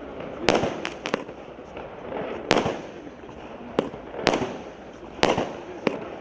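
Multi-shot consumer fireworks battery (the Legenda Hit A7013 cake) firing. It gives sharp bangs about once a second at uneven spacing, each followed by a short fading hiss.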